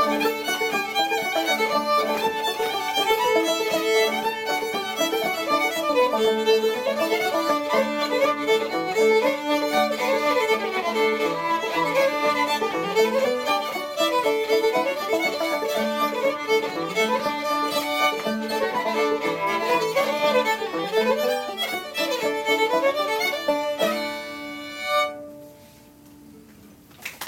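Old-time fiddle and banjo playing a traditional tune together, the bowed fiddle carrying the melody over the plucked banjo. The tune ends near the end with a last short note, then falls quiet.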